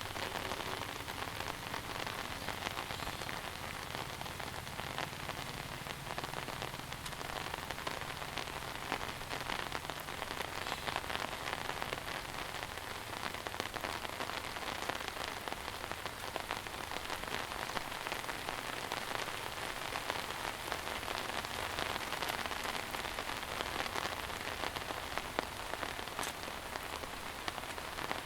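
Heavy monsoon rain falling steadily: a dense, even hiss of drops with many small, sharper ticks scattered through it.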